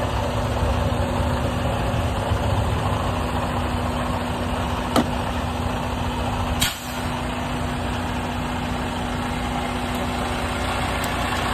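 Freightliner Cascadia semi-truck's diesel engine idling steadily. A sharp click comes about five seconds in and a louder metal clack just before seven seconds, as the hood latches are released and the hood is tipped open.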